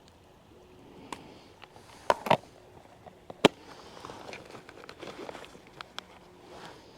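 Several sharp clicks and knocks, a close pair about two seconds in and the loudest a little later, over faint background noise.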